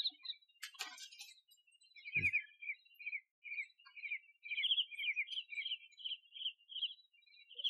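A regular series of short, high chirps, about two a second, with a soft thud about two seconds in.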